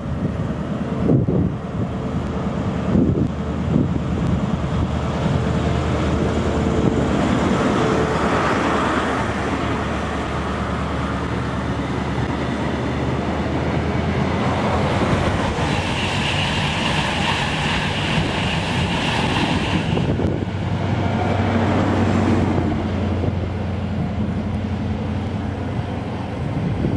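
Grand Central High Speed Train (Class 43 diesel power car with Mark 3 coaches) passing along the platform: a steady diesel drone with wheels running over the rails. A high whine joins in for several seconds about halfway through, as the coaches go by.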